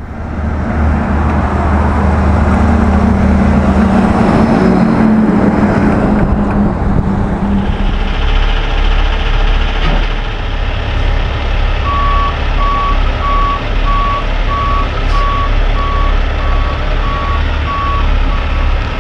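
Diesel engine of a Kenworth conventional logging truck running with a steady, loud drone; partway through, the sound changes to the low rumble of a Kenworth T800 heavy-haul tractor's diesel. Over that rumble a reversing alarm beeps steadily, about two beeps a second, through the second half.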